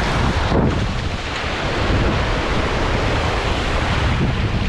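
Small waves washing and surging in the shallows at the water's edge, with wind blowing on the microphone.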